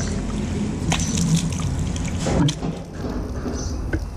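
Tap water running into a washbasin and splashing over cupped hands being rinsed, with a few sharper splashes about a second in, halfway through and near the end.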